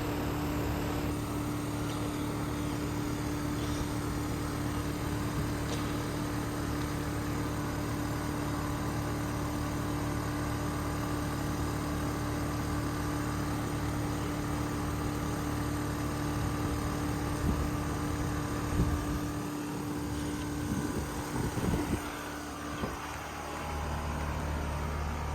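Carrier heat pump air conditioner running in heating mode: a steady mechanical hum with a low drone and a held tone. About 19 seconds in there are a few knocks and the tone drops out; a few seconds later the hum comes back deeper.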